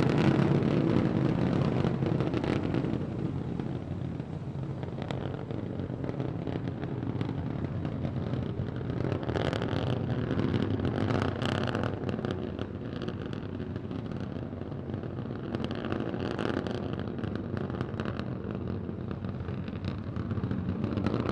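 Starship SN15's three Raptor rocket engines rumbling during powered ascent, with a crackling edge; louder for the first couple of seconds, then steadier and a little softer.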